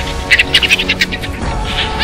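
Background film score with held, sustained tones. Over it, a quick run of short, loud, high-pitched bursts in the first second.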